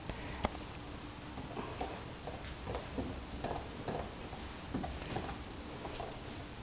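Rhodesian Ridgeback puppy gnawing a bone: faint, irregular clicks and crunches of teeth on bone, with one sharper click about half a second in.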